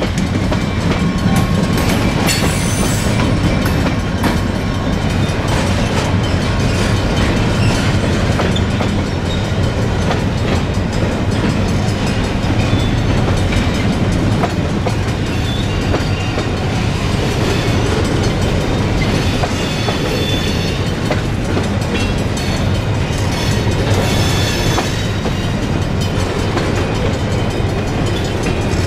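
Freight cars of a New England Central Railroad train rolling steadily past, a constant rumble with steel wheels clattering over the rail joints.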